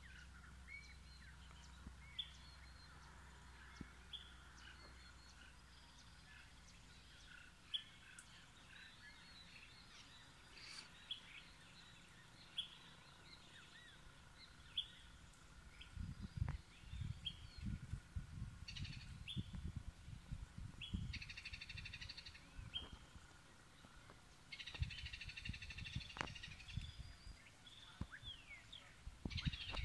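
Birds calling at dawn: many short, separate chirps and calls, with two buzzy, chattering calls past the middle. From about halfway through, low thumps and rumble sit underneath.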